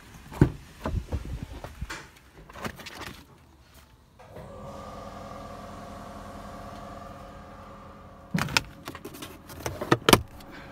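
Clunks and clicks of car interior fittings being handled, then from about four seconds in a steady hum with several tones. Sharp plastic clicks come twice near the end as the fold-down tray on the back of the front seat is worked.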